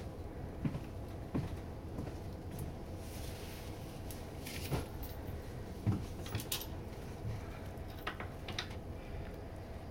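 Inside a double-deck passenger coach standing at a station stop: a steady low hum with scattered knocks and clicks, the loudest about six seconds in.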